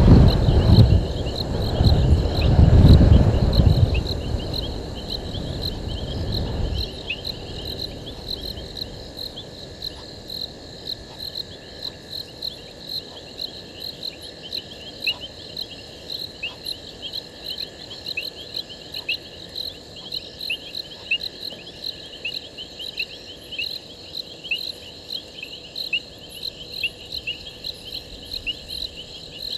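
Crickets chirping through the night at a waterhole: a steady run of short, high chirps, about three a second. A loud low rumble fills the first few seconds and fades out by about seven seconds in.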